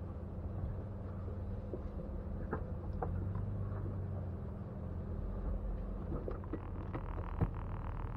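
Jeep Wrangler's engine running low and steady as it crawls over a rocky trail, with scattered clicks and knocks and one sharper knock about seven seconds in.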